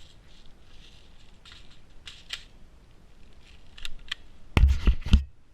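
Airsoft gun being handled: scattered light clicks and rustles, then a quick run of three loud knocks near the end.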